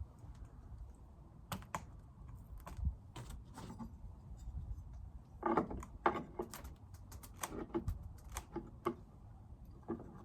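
Irregular clicks and knocks of wooden beehive frames being handled and knocked against the hive box, busiest in the second half, over a low rumble.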